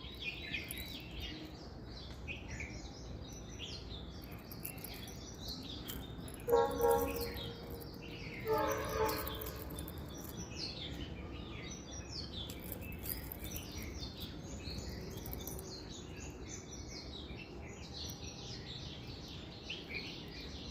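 Many birds chirping at once, a continuous chatter of short chirps over low background noise. Two louder, short pitched calls stand out about six and about eight and a half seconds in.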